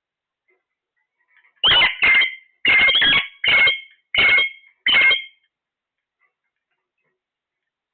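Parrot giving a run of six or seven short, loud, harsh calls over about four seconds.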